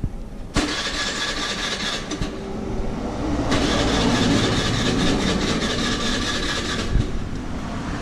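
Polaris Sportsman 400 H.O. ATV engine idling, heard close up from beside the engine.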